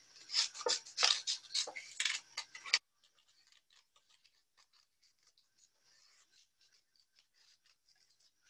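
Scissors snipping through construction paper in a quick run of short cuts for about the first three seconds, then going on much more faintly.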